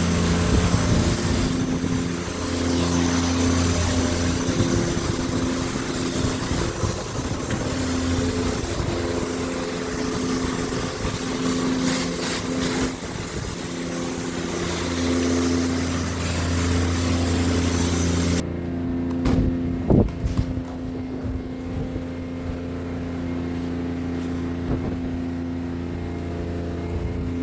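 Steady motor hum holding one pitch, with a loud hiss over it that cuts off suddenly about two-thirds of the way through, followed by a few brief knocks.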